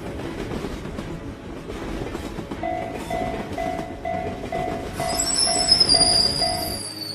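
Train running along the rails with a steady rumble. From about a third of the way in a railroad crossing alarm dings about twice a second, and a high squealing tone joins it about two-thirds of the way in.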